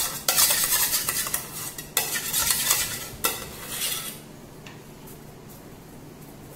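Butter being rubbed around the inside of a 6-inch metal cake tin to grease it: bursts of scraping and rubbing against the metal with small knocks of the tin, stopping about four seconds in.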